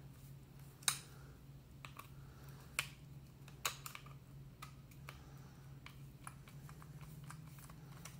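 Faint clicks and ticks of a screwdriver working the small screws and plastic parts of a Trimline telephone handset being taken apart. There are a handful of sharp clicks about a second apart, the loudest about a second in, then lighter ticks.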